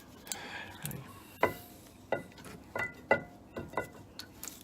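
Metal parts clinking as they are handled: about six sharp clinks, each with a brief ring, starting about a second and a half in.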